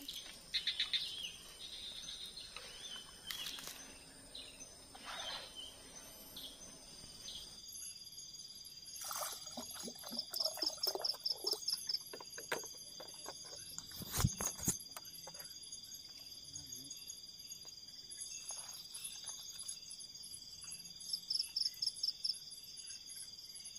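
Forest insects such as crickets chirring in steady, high, even tones, with short pulsed trills now and then. Scattered clicks and knocks run under them, the loudest a single knock about fourteen seconds in.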